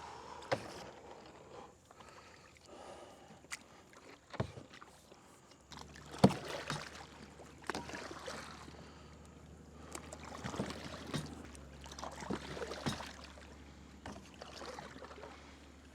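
Irregular splashes and knocks from a Nucanoe Frontier 12 kayak being worked through shallow water off a mudflat. A steady low hum starts about six seconds in and carries on under them.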